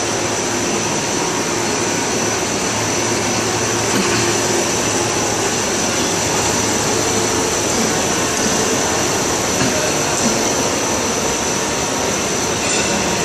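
Three-layer PE blown film machine running in production: a steady, loud machine noise with a continuous high whine.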